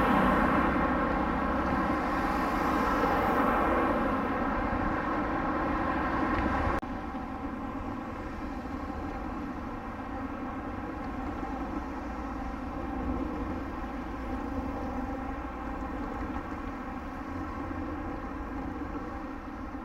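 Street traffic noise with a streetcar on the line: a steady hum with road noise, dropping suddenly in level about seven seconds in.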